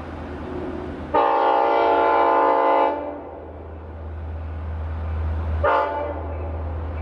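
Long Island Rail Road train horn sounding a long chord blast, then a short blast near the end, over the low rumble of the train drawing closer.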